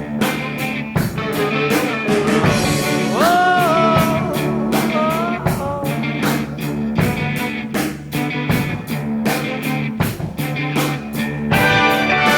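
Rock music with electric guitar and a steady drum beat, and a bending guitar lead line in the first half.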